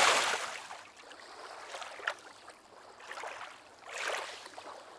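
Water sloshing and lapping in soft, uneven swells about once a second, after a louder rush of water that dies away in the first second.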